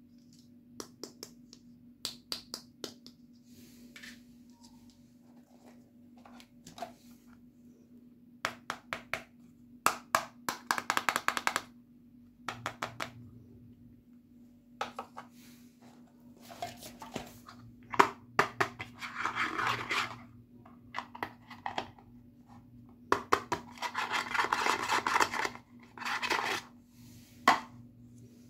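Small hard-plastic toy accessories being handled and set down on a table: scattered light clicks and taps, with a few longer stretches of scratchy rustling. A faint steady hum sits underneath.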